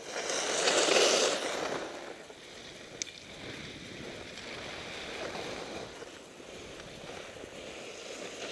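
Skis scraping and hissing over packed snow on a downhill run, swelling loudest in the first two seconds and then settling to a steady hiss, with one sharp click about three seconds in.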